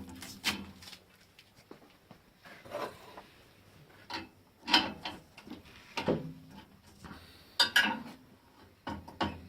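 Clunks and rattles of metal lathe parts being handled as a turned wooden workpiece is taken off a wood lathe: about half a dozen separate knocks with pauses between them, the loudest about halfway through and again near the end.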